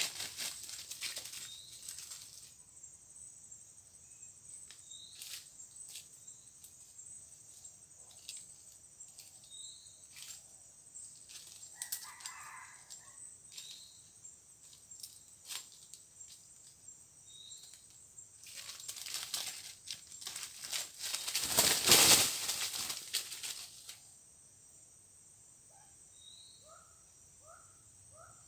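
Junglefowl roosters scratching and stepping through dry leaf litter, a steady run of small rustles and crackles, with a loud burst of wing flapping and leaf rustling about two-thirds through. A steady high insect buzz carries on underneath, and a few short chirps come near the end.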